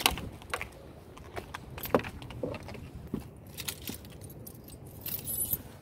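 Keys on a key ring jangling as belongings are handled, with scattered light clicks and rustles and a brighter jingle near the end.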